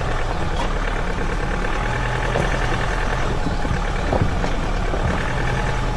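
Ford Ranger Raptor pickup's engine running low and steady as the truck crawls off-road at walking pace, with a few light knocks scattered through.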